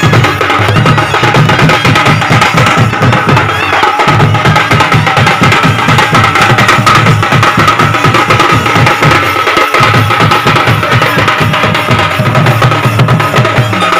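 Band baja drum ensemble playing loud: large stick-beaten drums and a small side drum in a fast, dense rhythm, with a steady high wind-instrument note held over it.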